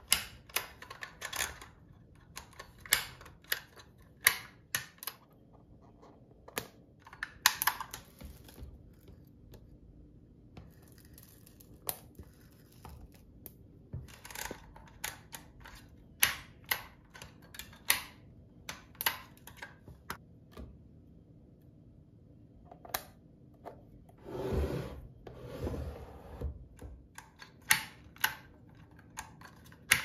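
Handheld embossing label maker being worked by hand: irregular plastic clicks and snaps from its letter dial and squeeze handle, some in quick runs. About four-fifths of the way through there is a longer, louder rubbing sound.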